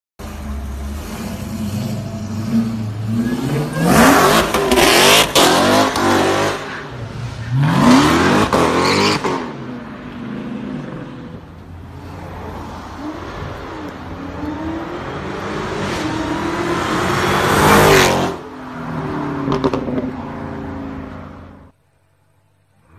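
Dodge Hellcat's supercharged V8 revving hard and accelerating away. There are two loud rising runs in the first ten seconds, then a long build in revs that peaks about eighteen seconds in and drops off, and the sound cuts to silence near the end.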